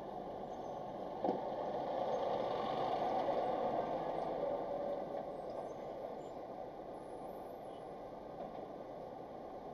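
A concrete mixer truck passing close alongside, its engine and tyre noise swelling a couple of seconds in and then easing off, heard from inside a car. A single sharp knock about a second in.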